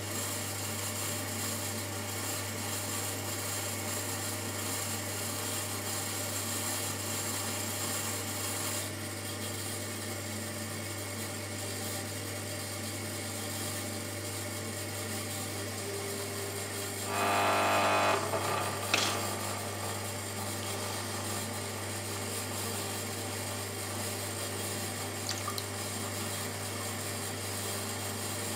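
Shimpo RK10 potter's wheel motor running with a steady hum and hiss as the wheel head spins at speed. About two-thirds of the way in a louder pitched sound rises briefly, and a short click follows it.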